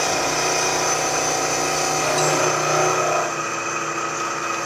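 Vertical milling machine running and taking a light cut across a rough cast iron angle plate casting. The low hum of the cut drops away a little over three seconds in, as the cutter clears the face, while the machine keeps running.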